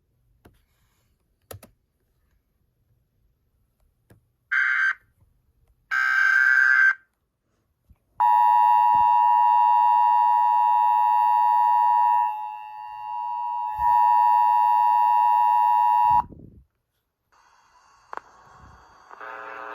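Emergency Alert System tones from a radio: two short bursts of warbling digital header data, then the steady two-tone EAS attention signal held for about eight seconds, announcing a tornado warning. A voice begins reading the alert near the end.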